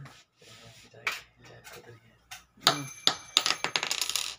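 Gold bangles clinking together in the hand: a rapid run of metallic clicks with a bright ringing, starting a little past halfway and cutting off suddenly at the end.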